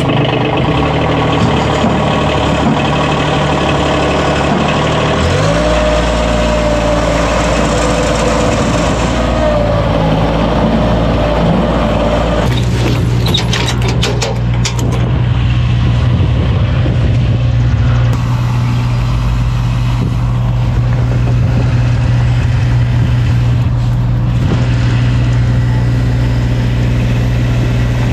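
Bobcat MT100 mini track loader's diesel engine running, then stepping up in speed about five seconds in. After about twelve seconds a lower, steady engine idle takes over, with a short stretch of metallic clicking and rattling from a hand crank on the dump body.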